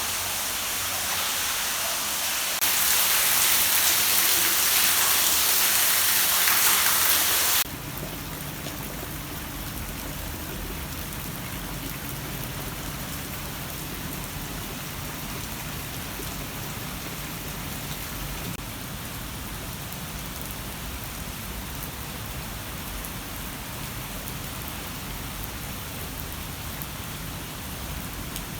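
Water pouring and splashing down inside a residential building in a steady rush like heavy rain. It is louder and hissier for a few seconds near the start, then drops abruptly to a lower, deeper rush about eight seconds in.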